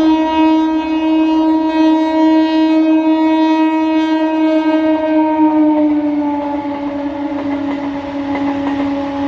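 Indian Railways electric multiple-unit train sounding one long unbroken horn blast as it approaches and passes at speed, the horn's pitch dropping about six seconds in as it goes by. The wheels clatter over the rail joints under the horn near the end.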